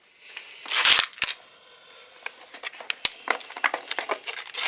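Rustling and crackling of something being handled: a loud crinkling rustle about a second in with a couple of sharp clicks, then a run of small crackles and ticks.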